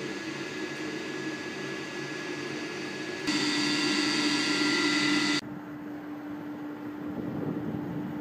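Steady whirring drone of industrial machinery with a steady hum. It jumps louder with a higher whine for about two seconds in the middle, then drops back abruptly to a quieter drone with a low hum.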